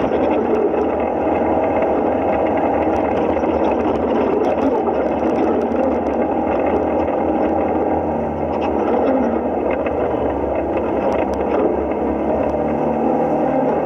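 Side-by-side UTV engine running steadily while driving along a dirt trail, heard from inside the open cab, with the drone of the drivetrain and scattered faint clicks and rattles.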